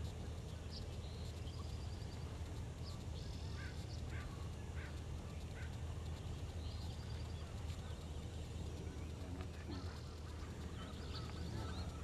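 Scattered short calls and chirps from a flock of ducks on the water, over a steady low hum.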